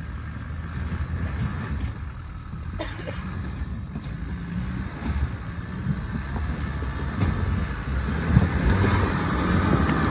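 Land Rover Defender's engine running at low revs as it crawls down a rutted, rocky lane, growing louder as it comes closer, with a few short knocks from the wheels and suspension over the rocks.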